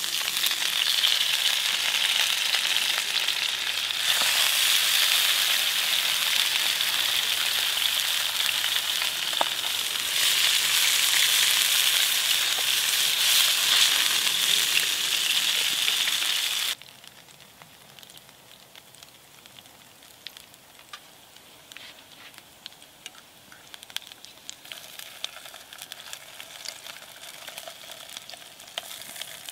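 Slices of Spam sizzling loudly in hot oil in a frying pan over a burning Swedish torch log, getting louder in steps about four and ten seconds in as more slices go in. About two-thirds through, the sizzle drops suddenly to a much quieter spitting with scattered pops and crackles.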